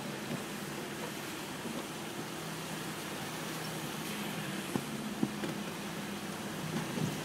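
Heavy rain on a car, heard from inside the cabin as a steady hiss over the car's low steady hum while it stands in traffic. A few short sharp taps come through, two of them close together about five seconds in.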